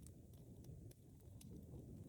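Wood fire in a fireplace crackling faintly: a few small sharp pops each second over a soft, low rumble of burning.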